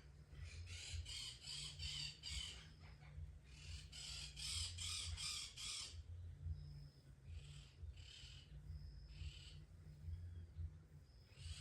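A cat licking its fur: quick, rhythmic rasping licks, about four or five a second. They come in two runs during the first six seconds, then turn sparser.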